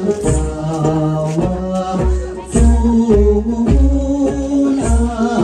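Tibetan gorshey circle-dance song: a sung melody over a steady, regular beat.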